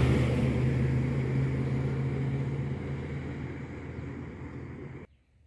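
A steady low motor hum with a rushing noise over it, slowly fading, then cut off abruptly about five seconds in.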